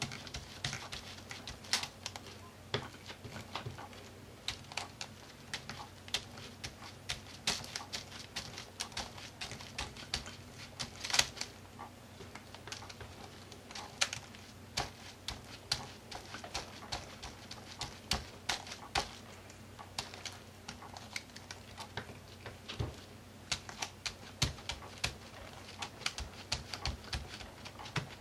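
Light, irregular tapping and dabbing on a paper journal page, several quick taps a second in clusters, with one sharper tap about eleven seconds in.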